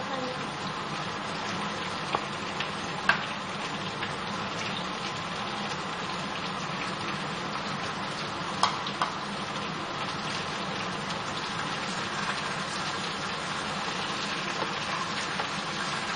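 Sliced pumpkin and potato frying in mustard oil in a frying pan, sizzling steadily, with a few sharp clicks in between.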